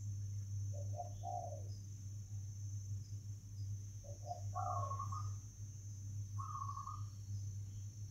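A bird calling several times: two short double notes about a second in and about four seconds in, then longer flat single notes about every two seconds. Under it runs a steady high insect buzz and a low hum.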